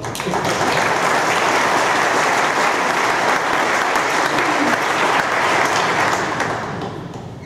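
Audience applauding, swelling up within the first half second, holding steady and dying away near the end.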